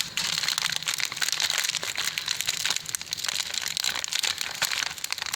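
Plastic wrapping crinkling and rustling as it is handled, in a dense run of small crackles.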